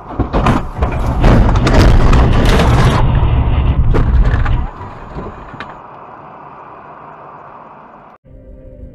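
Car crash: a vehicle rolling onto its side and slamming into a stopped car, a run of loud crunching, cracking impacts over a heavy rumble for about four and a half seconds, then a steadier, quieter traffic noise. Music comes in near the end.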